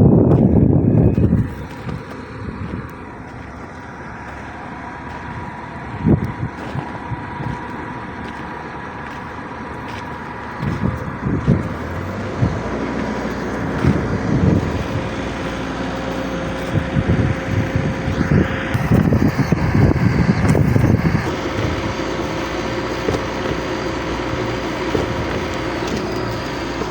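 Caterpillar D8R bulldozer's diesel engine running, with a faint steady whine over it. It is loud at first and drops back after a second or so, then surges louder several times, most strongly about two-thirds of the way through.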